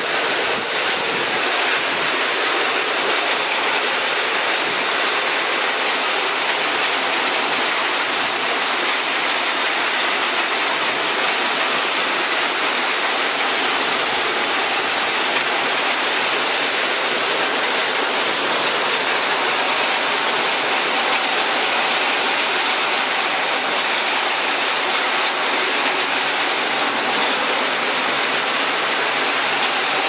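Heavy rain and strong wind in a storm: a steady, dense rushing hiss of rain pouring onto pavement.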